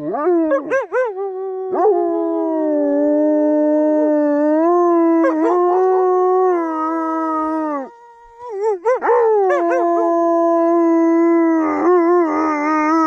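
Two wolf-like dogs howling together in long, held howls that waver in pitch at the start. The howling breaks off about eight seconds in and then starts again.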